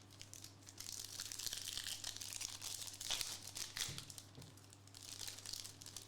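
Crinkling and tearing of a trading-card pack's foil wrapper being torn open and handled, over a faint steady low hum.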